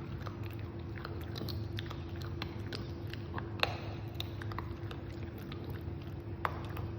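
A crunchy Japanese snack being chewed, with irregular sharp crunches and two louder cracks, about three and a half and six and a half seconds in, over a steady low hum.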